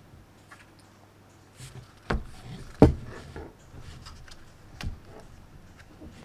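Handling noises from an unboxing: a few sharp knocks and light clicks as things are picked up and set down, the loudest knock about three seconds in.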